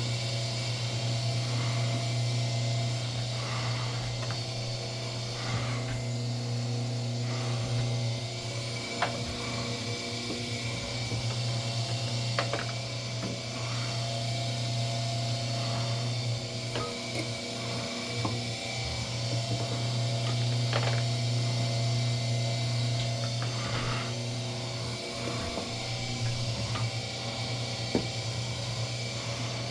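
Wire stripping machine working as copper wire is fed through it: a steady low hum that drops out briefly a few times, with scattered clicks and scraping.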